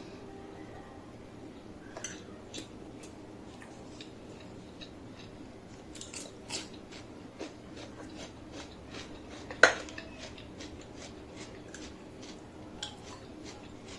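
Close-miked eating sounds: a run of short crunchy clicks and smacks from chewing, with one sharp, much louder click about two-thirds of the way through. A faint steady hum lies underneath.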